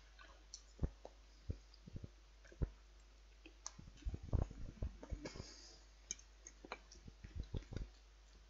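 Metal knife and fork tapping and scraping on a plate: scattered soft clicks, coming closer together about halfway through.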